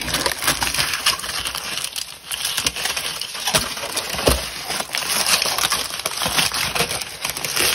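Foil burrito wrapper crinkling and crackling irregularly as hands peel it open, the red outer foil and silver inner foil pulled back from the tortilla.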